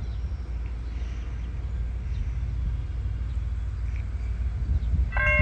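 A low steady rumble; near the end a railroad crossing's warning bell starts ringing suddenly as the crossing activates.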